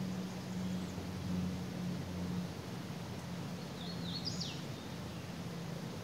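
Steady rush of a forest creek's running water. About four seconds in, a songbird gives one short call: a few quick high notes, then a higher note that slurs down. A faint low hum runs underneath.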